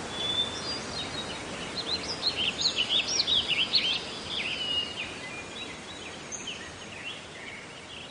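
Small birds chirping and singing in quick, rising and falling notes over a steady background hiss, busiest in the first half and thinning out later.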